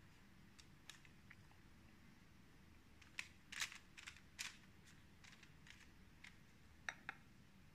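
Near silence with a few soft clicks and taps: a pastry brush and a glass bowl of beaten egg being handled while raw croissant dough is brushed with egg wash. The taps cluster in the middle, with two more near the end.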